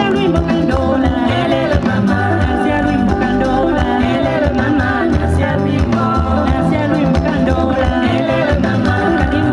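Lively dance song with women singing over drums and other instruments, in the style of a typical village dance.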